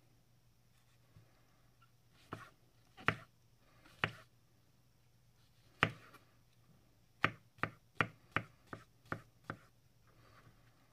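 Böker Outdoor Cuisine III santoku knife slicing button mushrooms, the blade knocking down onto a wooden end-grain cutting board: four separate cuts, then a quick run of about seven at roughly three a second.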